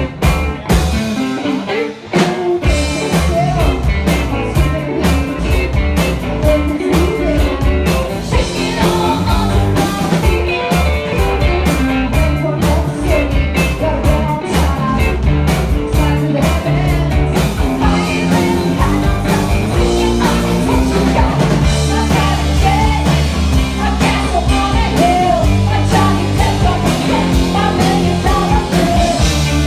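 Live rock band playing with electric guitar and bass guitar, and a woman singing into a microphone. The fuller sound, with its low end, comes in about two seconds in.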